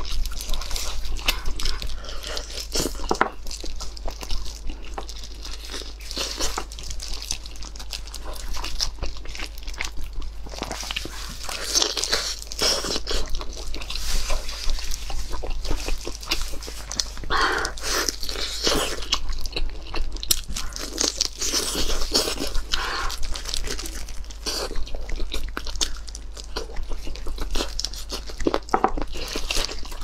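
Close-miked eating of kiln-roasted chicken: biting and chewing, with the meat pulled apart by gloved hands, making a dense run of small clicks and smacks.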